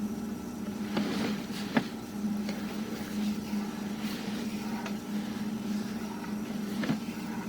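A steady low mechanical hum, with a few sharp clicks or knocks scattered through it, about a second in, near two seconds and near the end.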